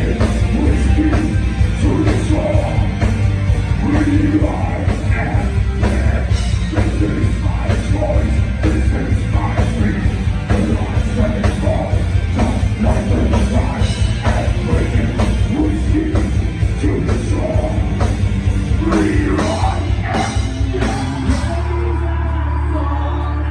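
Live heavy metal band playing: drums, distorted guitars and bass, with a male vocalist singing over them. Near the end the drumming stops and a low chord is held ringing.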